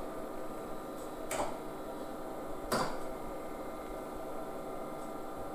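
Two computer keyboard keystrokes, a sharp click about a second in and another about a second and a half later, over a steady hum from the running 486 PC.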